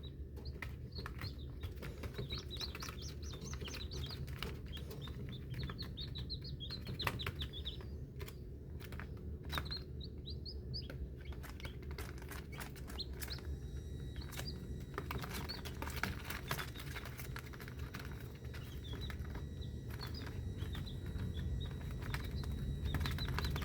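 Many newly hatched chicks peeping in quick, short, high chirps, with scattered clicks and knocks and a steady low hum underneath.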